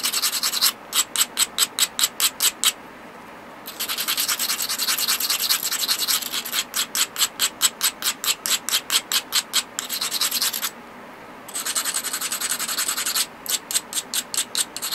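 Edge of an obsidian slab being ground heavily with an abrader: fast back-and-forth scraping strokes, about five a second in runs, with smoother steady rubbing between and two short pauses. The grinding sets up the striking platforms for taking flakes.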